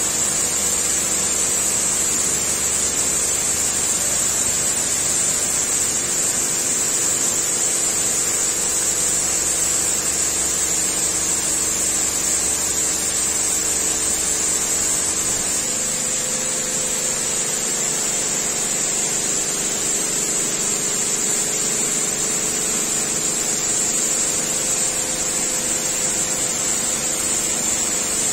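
Robowash 180 Eco Smart touchless car wash spraying water onto a car through its arch nozzles: a steady high hiss of spray over the hum of the pump. The low hum changes about halfway through.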